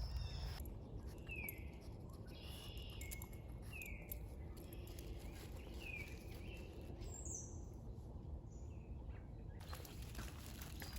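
Birds calling, a short falling chirp repeated every second or two, over a low steady background rumble.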